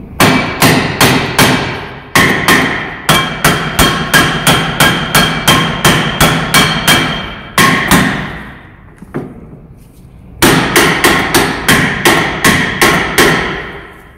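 Copper-faced hammer striking a Citroen C15's front brake disc to knock it off the wheel hub, the steel disc ringing after each blow. Runs of about two to three blows a second, with a pause about nine seconds in.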